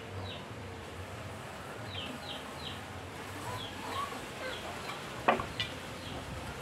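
A small bird chirping in quick runs of two or three short, falling notes, repeated every second or so. A single sharp knock comes near the end.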